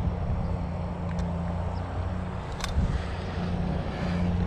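Wind buffeting the action camera's microphone, a steady low rumble, with a sharp click about two and a half seconds in.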